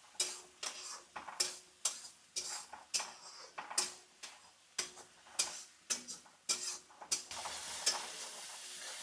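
A spoon scrapes and knocks against a hot metal kadhai while onion and tomato paste is stirred and fried in oil, the bhuna stage of a rajma masala. There are about two strokes a second, each with a short metallic ring. A steady sizzle grows louder after about seven seconds.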